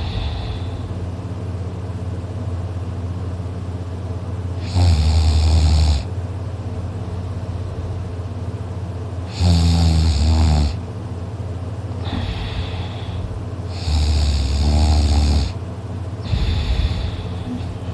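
A sleeping man snoring loudly: three loud snores about four and a half seconds apart, each lasting a little over a second, with softer breaths between them.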